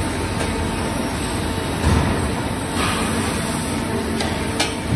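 Automatic metal-sawing line with loading conveyors running: a steady mechanical hum with a low thump about two seconds in and a sharp click near the end.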